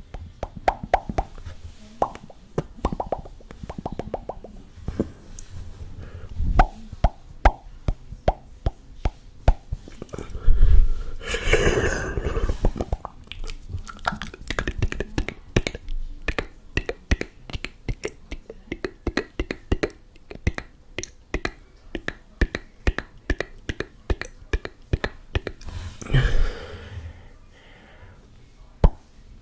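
ASMR mouth sounds close to the microphone: a rapid run of wet clicks, pops and smacks. A louder, longer noisy burst comes about eleven seconds in, and a shorter one near twenty-six seconds.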